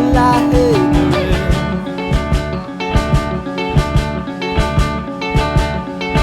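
Rock band playing an instrumental passage: guitars over a steady drum beat, with a lead line bending in pitch in the first second.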